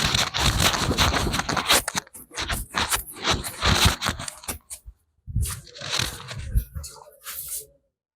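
Head-massage sounds: hands rubbing, scratching and slapping on hair and scalp in a quick, busy run of short strokes, pausing briefly about five seconds in and stopping abruptly near the end.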